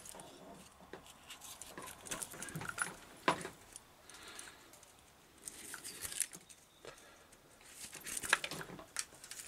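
Fine steel braid wires of a cable being picked apart and split into two bunches by hand: faint, light metallic jingling and scratching with scattered ticks.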